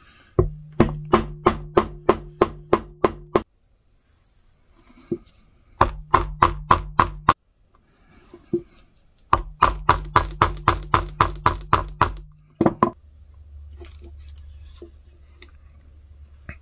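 Poly mallet repeatedly striking a metal stitching punch through leather, punching stitch holes: about three to four sharp knocks a second in three runs with short pauses between. The knocking stops a little after two-thirds of the way through, leaving only faint handling sounds.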